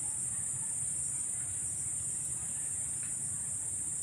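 Crickets chirring in a steady, unbroken high-pitched chorus.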